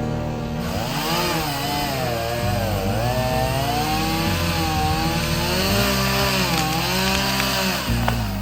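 Chainsaw engine revving up and dipping under load, again and again, as it cuts through alder wood, with background music over it.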